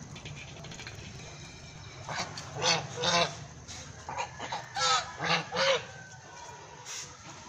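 Domestic white geese honking. There is a run of three calls about two seconds in, then a quicker run of about five calls from four seconds on, and one short call near the end.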